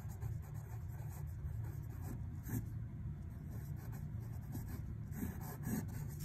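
Pencil writing on graph paper: short scratching strokes, over a steady low hum.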